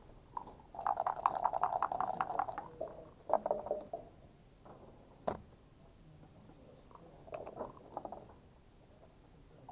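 Backgammon dice shaken in a dice cup, a fast rattle lasting about two seconds, then thrown onto the board with a short clatter. A single sharp click follows about two seconds later, and a few lighter clacks of dice and checkers near the end.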